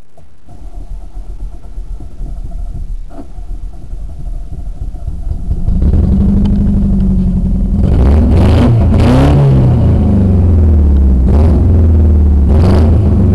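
Car engine cranking on the starter for about five seconds, then catching and running loudly, revved up and down several times. It runs with the catalytic converter and muffler cut off, so the exhaust is open.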